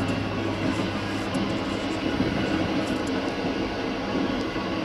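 Steady rumble and running noise of a Pakistan Railways Green Line passenger coach, heard from inside the coach's small washroom.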